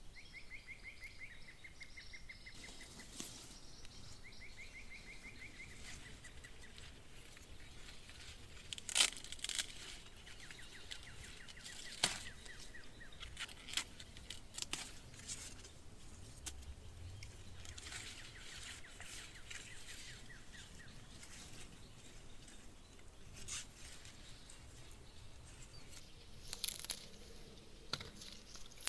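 Quiet outdoor ambience: a rapid, high trilling call repeats in short runs several times. Scattered sharp snaps and rustling, tearing sounds come through, the loudest about nine seconds in and about twelve seconds in.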